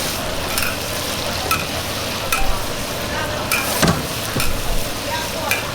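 Food sizzling in a hot wok, with a metal spatula scraping and knocking against the pan about once a second as it is stir-fried.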